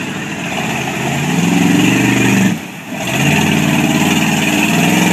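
Monster truck engine revving hard, its pitch climbing, dropping off briefly about two and a half seconds in, then building again.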